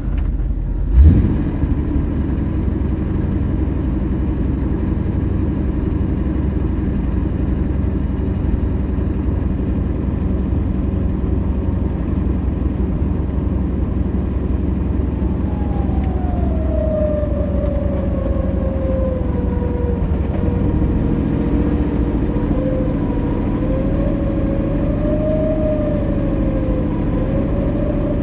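Jeep Wrangler YJ engine running steadily while its electric winch pulls it up a sand mound, with one sharp knock about a second in. From about halfway a whine joins in, sliding down in pitch and then wavering, as the winch works under load.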